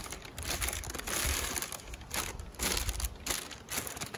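Sheet of brown paper crinkling and rustling in irregular bursts as it is handled over a hive box.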